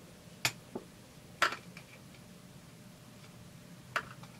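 Flat-blade screwdriver clicking against the carburetor parts of a Husqvarna 350 chainsaw as it levers a part into its positioner. There are a few sharp clicks, the loudest about a second and a half in and another near the end.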